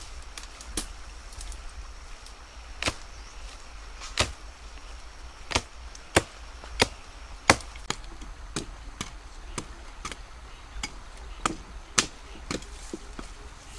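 A blade chopping into wood: about fifteen sharp strikes at irregular intervals, most under a second apart, loudest a little past the middle.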